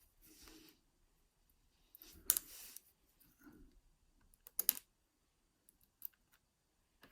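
Small metal lock parts clicking and rattling as the pins of a euro cylinder lock are handled and tipped out during disassembly. There are a few scattered sharp clicks, the loudest brief rattle about two and a half seconds in and another about a second and a half later.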